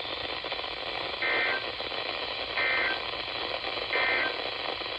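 Three short bursts of Emergency Alert System (SAME) digital data, about a second and a half apart, over steady radio hiss. Their shortness fits the end-of-message code that closes a weather warning broadcast on NOAA Weather Radio.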